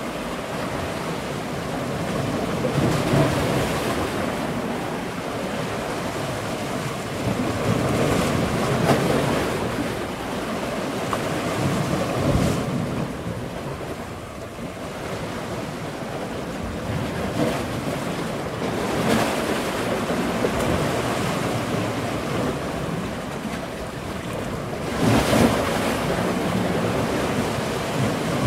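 Sea water rushing and splashing past a moving boat's hull, with wind buffeting the microphone; the rush swells and eases every few seconds.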